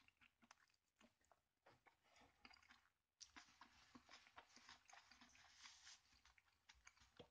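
Faint chewing: a person biting into a stuffed soft flour tortilla fajita and chewing it, heard as many small soft clicks that grow busier after about three seconds.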